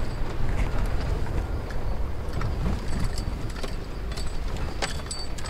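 A car driving slowly: a steady low rumble of engine and tyres, with scattered small rattles and knocks throughout.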